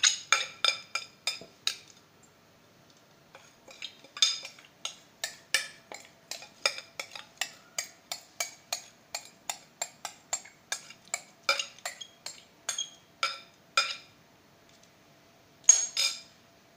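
Metal spoon knocking and scraping against a glass bowl to shake the last rice stuffing into a clay pot. There is a quick run of ringing clinks, a short pause, then steady clinks about two a second, and one louder clink near the end.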